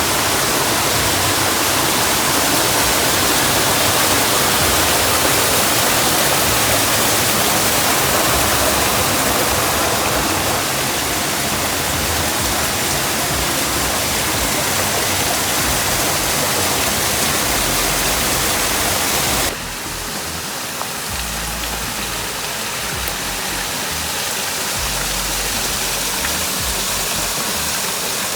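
An 18 m three-tiered waterfall: a dense, steady rush of falling water. About two-thirds of the way through it drops suddenly to a quieter, duller rush.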